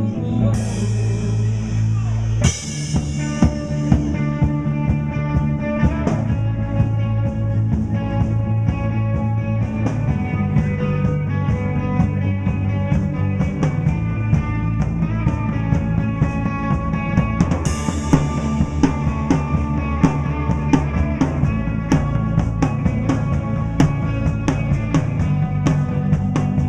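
Live rock band playing an instrumental passage with no vocals: full drum kit, bass and sustained melodic lines. Crash cymbals hit just after the start, again about two seconds later, and once more past the midpoint.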